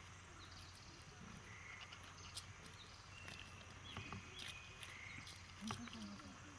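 Faint outdoor ambience under a low steady hum, with scattered soft clicks and a few short high chirps, and a brief low call near the end.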